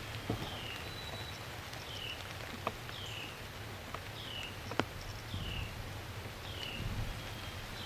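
A songbird repeating a short downslurred whistled note about once a second over rural outdoor ambience, with a few sharp clicks, the loudest about two-thirds of the way through.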